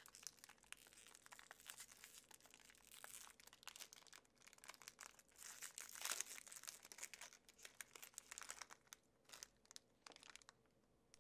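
Sealed wrapper of an HP 61 tri-color ink cartridge being torn open and peeled off by hand: soft, dense crinkling and crackling, with a louder tear about six seconds in, dying away near the end.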